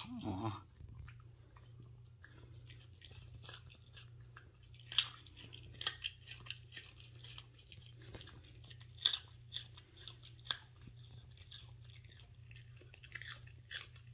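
A small dog chewing a baby carrot: irregular sharp crunches, a few loud ones scattered through, with quieter chewing in between.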